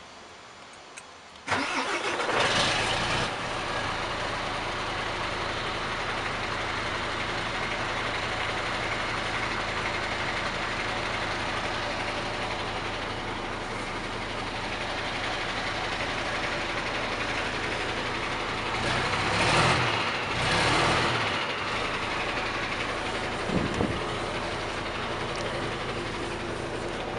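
MAN TGA 18.430 truck's six-cylinder diesel cranking and catching about one and a half seconds in, flaring briefly, then settling to a steady idle. Two short louder surges come near the end, followed by a brief sharp sound.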